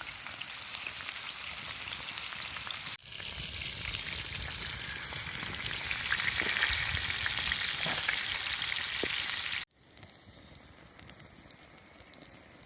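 Beef steaks sizzling as they fry over a campfire: a dense, steady hiss with scattered small pops. About ten seconds in it drops suddenly to a much fainter hiss.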